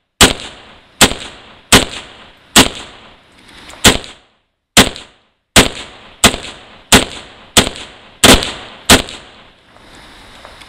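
Zastava M92 PAP 7.62x39 AK-pattern pistol fired semi-automatically, about thirteen shots at a steady pace of roughly one and a half a second, with a brief pause a little under halfway and the string stopping near the end. The gun cycles each round without a hang-up, showing the newly fitted Ultimak mod works.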